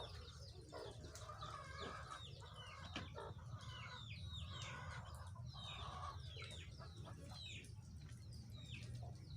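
Chickens clucking, with many short high peeps that drop in pitch, over a low steady hum.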